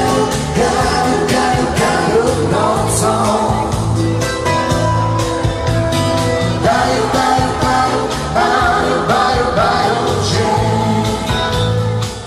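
Polish wedding dance band playing a song with a steady beat and a melodic lead line.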